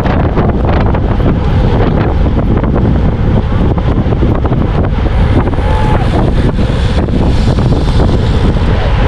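Loud, steady wind rush buffeting the microphone of a camera on a road bike riding at race speed in a pack.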